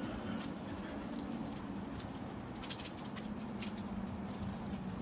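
Water spray pattering steadily against a brick wall as it is washed, over a steady low hum.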